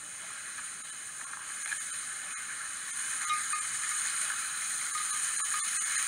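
Steady hissing rush of water from a small garden waterfall, thin and high with little low end, growing slightly louder.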